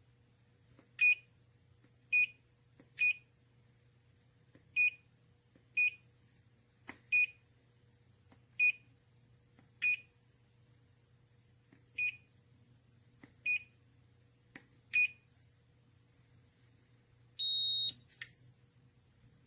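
FNIRSI DMT-99 digital multimeter's beeper giving short single beeps, about eleven at irregular intervals of one to two seconds, then one longer, higher beep near the end.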